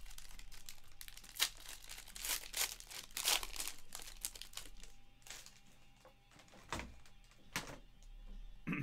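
Foil wrapper of a Panini trading-card pack being torn open and crinkled in the hands, a dense run of crackles that thins out after a few seconds. Then the cards are handled, with a few light clicks.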